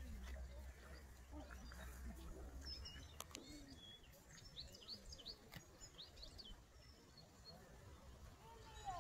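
Faint small-bird chirps over quiet outdoor background, a quick run of short high notes about three to six seconds in. A low rumble sits under the first three seconds.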